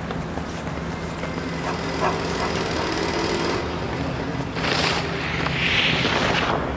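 A steady low mechanical hum throughout. About four and a half seconds in, skis hit and slide along a snow-covered metal box, giving two loud hissing scrapes as snow sprays off.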